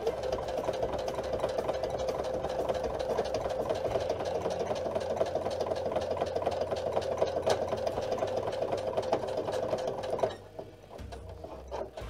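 Electric domestic sewing machine stitching steadily through sew-on Velcro hook-and-loop tape and fabric, the needle running at an even rapid pace, then stopping about ten seconds in.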